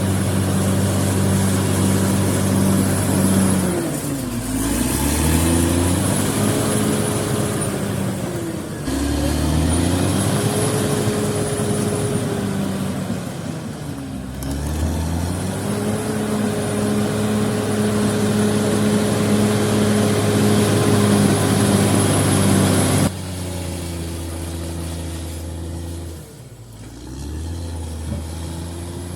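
Caterpillar D6R XL bulldozer's diesel engine running hard, its pitch dipping and recovering three times in the first half. About three-quarters of the way through the sound cuts abruptly to a quieter engine note.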